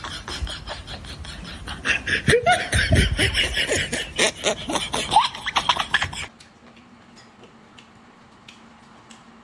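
Loud wet slurping of noodles, crackly and clicking with short rising whistles as air is drawn in, stopping abruptly about six seconds in; after that only a low hum and a few faint clicks.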